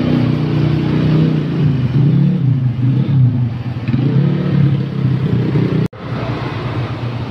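Tour bus engine revving, its pitch rising and falling in smooth swells. The sound cuts off sharply about six seconds in and picks up again a little lower.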